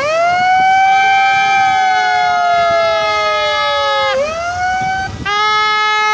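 Hand-held megaphone's siren wailing: the pitch swoops up and then falls slowly, twice, before breaking off. About a second later a steady, level tone sounds.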